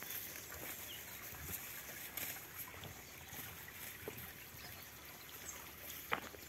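Faint outdoor rustling and scuffing of steps over dry grass and a dirt track, with soft scattered ticks and one sharp click about six seconds in.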